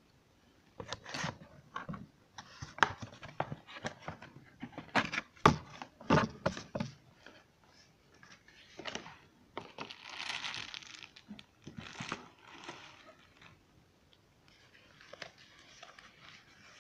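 Cardboard box flaps and packaging being handled: a quick run of sharp knocks, taps and scrapes for the first several seconds, then rustling and crinkling of packaging in short spells.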